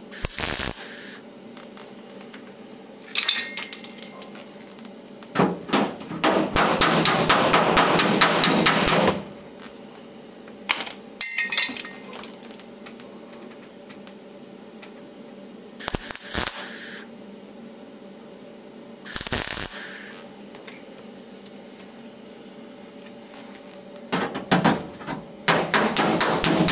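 MIG welder laying short tack welds on thin car-body panel steel: crackling bursts of under a second each, and one longer run of about four seconds. Near the end, rapid hammer blows on the weld against a dolly, which stretch the metal to hold the seam gap so the panel doesn't pull in and warp.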